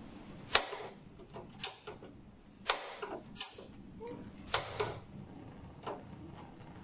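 Gas hob knob being turned and its igniter clicking in a series of sharp snaps, the loudest about a second apart, until the burner lights.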